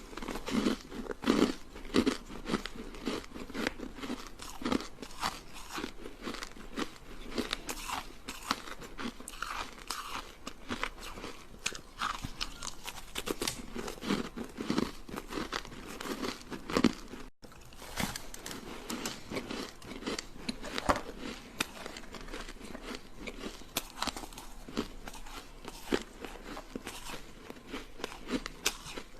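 Frozen ice sticks being bitten and chewed, a dense run of sharp cracks and crunches, broken by a momentary gap about two-thirds of the way through.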